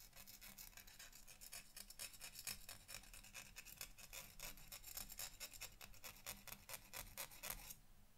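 Faint rasping of a diamond needle file worked back and forth over the edge of a tiny photo-etched metal brake disc, in quick, even strokes that stop about half a second before the end.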